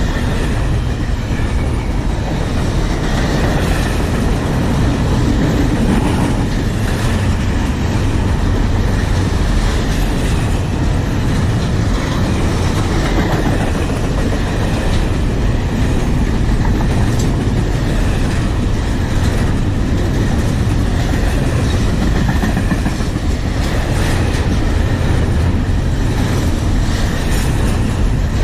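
Freight train cars rolling past close by, a steady loud rumble of steel wheels on rail with clickety-clack over the rail joints.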